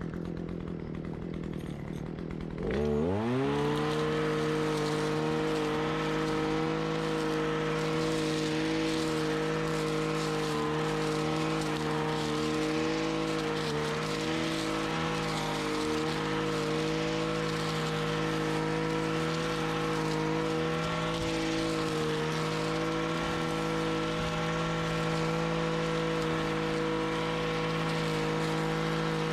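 Gas weed eater fitted with a metal edger blade used as a brush blade, revved up sharply about three seconds in and then held at a steady high engine speed.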